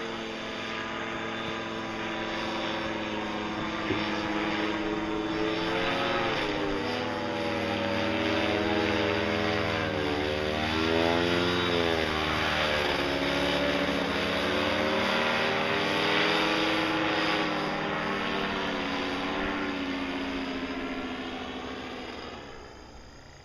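Paramotor engine and propeller running in flight, the engine note wavering up and down in pitch and louder around the middle, then fading away over the last couple of seconds.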